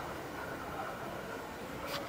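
Steady rushing noise of a train running on the line, with a faint ringing tone over it and a short click near the end.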